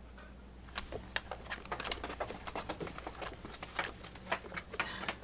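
A dog's claws pattering and clicking on a hard floor as it walks, a quick irregular run of taps that starts about a second in.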